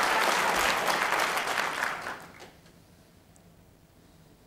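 Audience applauding a shot in the break, dying away about two seconds in.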